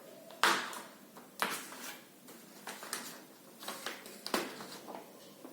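About six short rustling and scraping handling noises, a second or so apart, with a low room hush between them.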